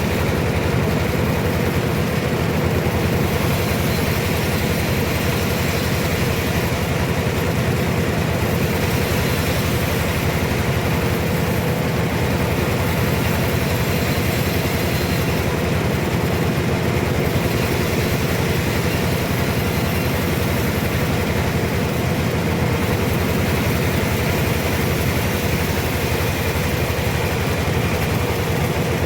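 Log sawmill running with a steady, even machine drone.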